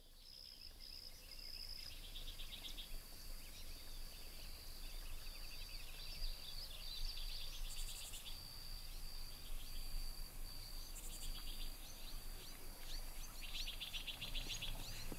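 Outdoor ambience of insects and birds: a steady high insect drone that breaks off every so often, with bursts of rapid trilling chirps, fading in over the first couple of seconds.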